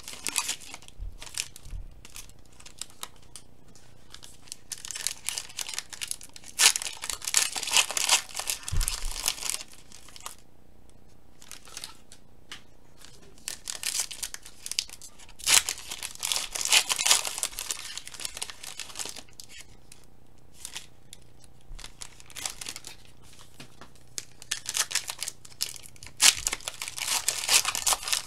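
Foil trading-card pack wrappers being torn open and crinkled by hand, in several bursts with short pauses between.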